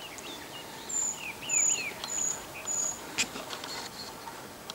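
Small songbirds calling: several short, downward-slurred chirps and a run of four very high, thin notes about half a second apart. A sharp click sounds a little after three seconds.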